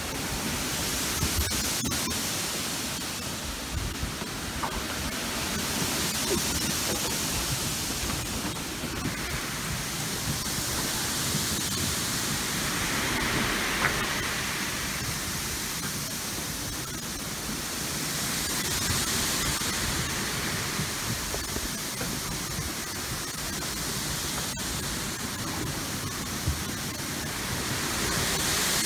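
Floating pumice stones hissing and grinding against a sailboat's hull as it moves through a pumice raft: a steady hiss that swells and eases every several seconds.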